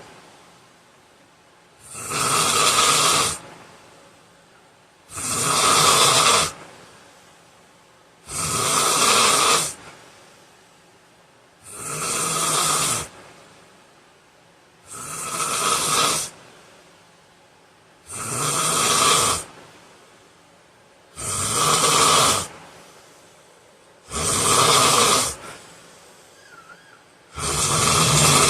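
A man snoring loudly in his sleep: one long snore about every three seconds. Each snore swells up and then cuts off sharply.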